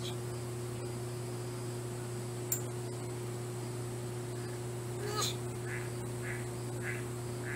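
Steady low electrical hum with hiss, broken by a single click a couple of seconds in. In the second half come a short rising squeak and then a few soft, short chirps about half a second apart.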